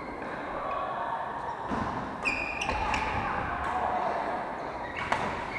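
Badminton play echoing in a wooden-floored sports hall. Rackets strike the shuttlecock, with a sharp hit near the end, and a shoe squeaks on the court floor about two seconds in, over faint chatter.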